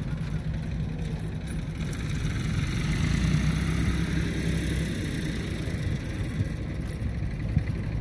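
An engine runs steadily throughout, a constant mid-pitched drone over a low rumble.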